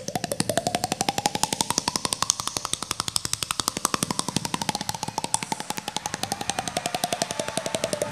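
Instrumental Indian fusion music: a rapid, even run of percussion strokes, more than ten a second, under a sustained tone that glides up and then slowly falls back.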